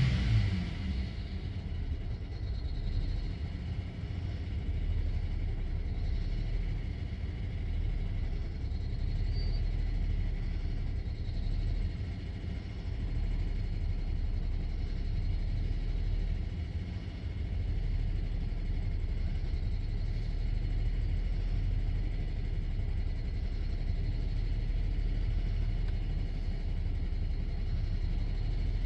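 BMW E90's N53 inline-six petrol engine idling roughly. About a second in, its note falls back from a rev, and then it runs as an uneven low rumble that swells and dips. This is the unstable idle after revving that the owner is chasing, with fault codes for cylinder injection cutout and low fuel pressure.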